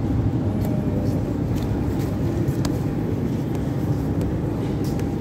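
Steady low rumble of metro station background noise, with a faint steady hum and a few light clicks.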